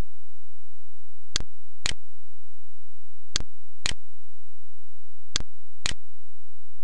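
A steady low electrical hum over faint hiss, broken by pairs of sharp clicks, half a second apart, that repeat every two seconds.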